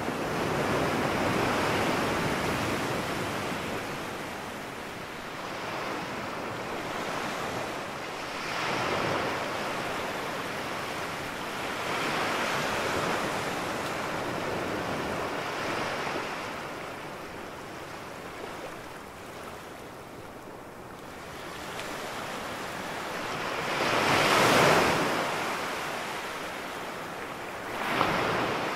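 Small ocean waves breaking and washing up a sandy beach, the surf swelling and fading every few seconds. The biggest break comes about three-quarters of the way through, and a short sharp splash follows near the end.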